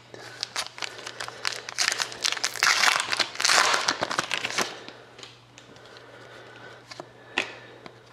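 A trading-card pack wrapper crinkling and tearing as it is ripped open, loudest for about three seconds starting a second and a half in, with scattered clicks and taps of cards being handled before and after.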